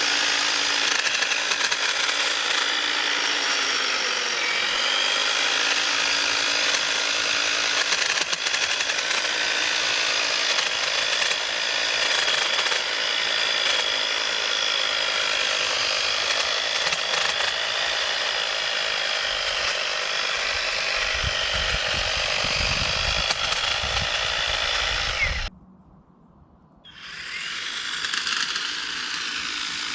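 EGO battery pole hedge trimmer running, a steady electric-motor whine with the buzz of its reciprocating blades, dipping briefly in pitch about four seconds in. The sound cuts off suddenly near the end for a second or so, then comes back quieter.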